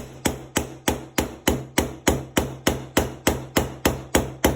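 A hammer tapping a roll pin punch in an even rhythm of about three strikes a second, driving out the roll pin that holds an AR-15 trigger guard.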